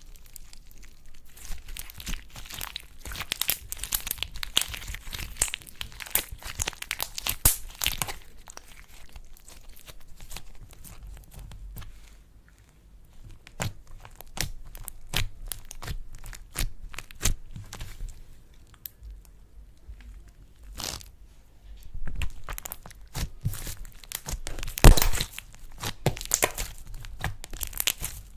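Slime being squished and stretched by hand, giving dense crackling clicks and small pops. The crackling is busiest in the first several seconds, with one loud pop about 25 seconds in.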